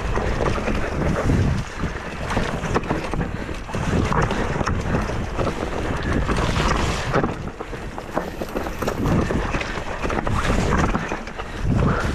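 Wind buffeting the microphone while an Ibis Mojo HD4 full-suspension mountain bike rolls fast down a dirt singletrack, its tyres rumbling over the ground with frequent knocks and rattles from the bike over bumps. The loudness surges and dips as the speed and terrain change.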